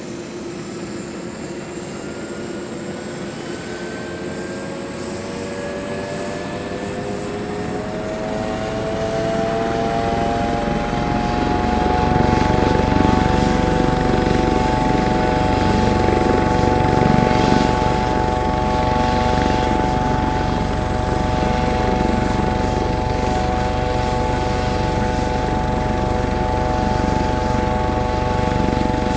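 Helicopter starting up: a whine of several tones rises in pitch over the first twelve seconds as the engine spools up, and a low rotor rumble builds in, then both settle into a steady run.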